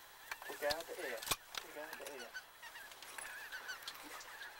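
A flock of geese calling overhead: many short calls overlapping, thickest in the first two seconds. A sharp click or two sounds about a second in.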